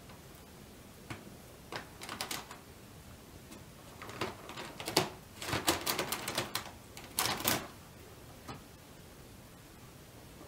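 Guinea pigs scurrying about their pen, making scattered bursts of quick, scratchy clicking and rustling, busiest in the middle.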